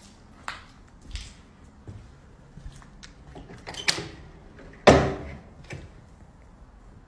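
Scattered knocks and scrapes of handling and movement in a bare room, about five in all, the loudest a single thump about five seconds in.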